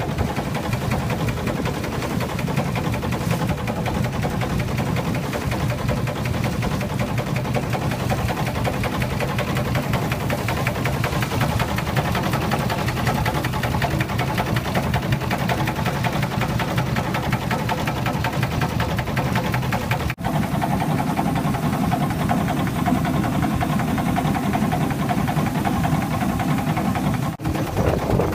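A boat's engine running steadily with a rapid, even mechanical beat.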